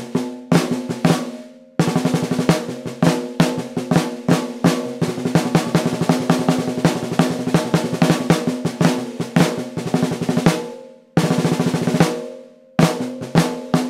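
A 5x14 snare drum, tuned low with no Moon Gel muffling, played with sticks: a few single strokes, then about eight seconds of fast strokes and rolls. Near the end two single hits are left to ring out, the unmuffled head holding a low pitch, before the strokes pick up again.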